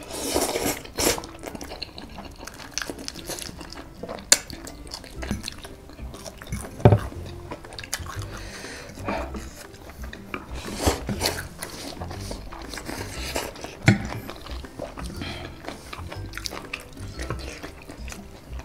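Shin Ramyun instant noodles being slurped off a fork and chewed, with a few sharp clicks of cutlery.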